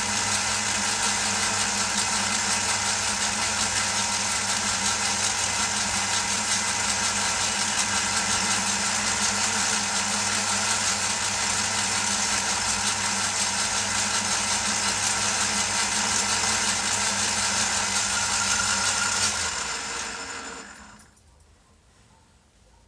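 Old metal lathe running steadily while a boring bar bores out a workpiece held in the chuck, to seat a bearing. About 19 seconds in the lathe is switched off and its sound dies away over about two seconds, leaving near silence.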